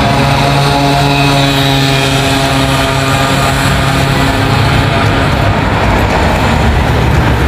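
A vehicle engine running steadily and loudly close by. Its pitch drops lower about halfway through.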